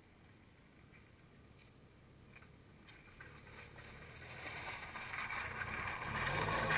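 Large adventure motorcycle's engine approaching and growing steadily louder, then water and mud splashing as the bike rides through a puddle near the end.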